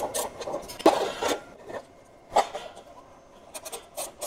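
Screwdriver working screws out of a plastic foot-pedal valve cover: scraping and rubbing for the first second or so, then a few sharp clicks and knocks as the plastic cover is handled, several close together near the end.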